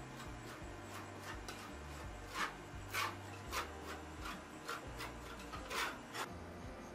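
Metal spatula scraping and tapping across the frozen steel plate of a rolled ice cream machine, smoothing a thin layer of setting ice cream. A run of short, sharp scrapes, about two a second, louder from about two seconds in.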